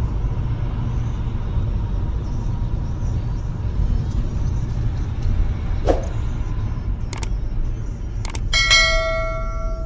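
Steady low rumble of a car driving, heard from inside the car through a dashcam: road and engine noise. Near the end come a few sharp clicks and then a bright bell-like ringing of several tones, the click-and-bell sound effect of a subscribe animation.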